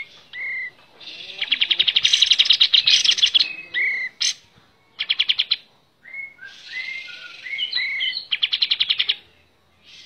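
Ochraceous bulbul calling: short slurred whistled notes alternating with three spells of rapid, harsh chattering. The first spell, about a second in, is the longest and loudest.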